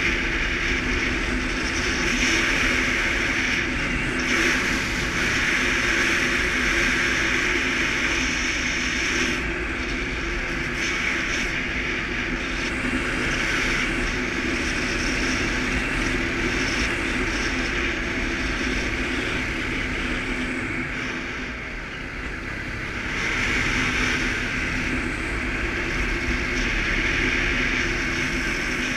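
Suzuki KingQuad ATV's single-cylinder engine running steadily under way, with a rush of wind noise. The engine eases off briefly about three-quarters of the way through, then picks up again.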